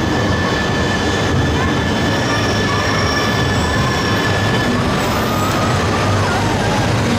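E3-series Genbi Shinkansen train pulling into a station platform, its cars running past with a steady rushing rail noise. A steady high whine stops about five seconds in, and faint wheel squeals waver above the noise.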